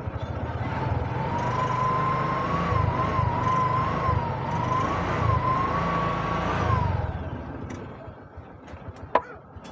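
A TVS King bajaj's single-cylinder four-stroke engine running, held at raised revs with a wavering whine over it, then easing off about seven seconds in. A sharp click near the end.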